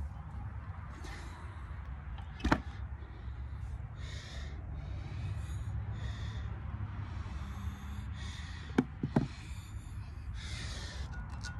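A person breathing heavily through the nose in short sniffs and snorts, with a sharp knock about two and a half seconds in and a quick pair of knocks later on, over a steady low rumble.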